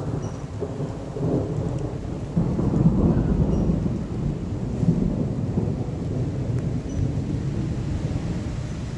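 Rain falling on and around a phone, heard through its wet microphone as a loud, uneven low rumble.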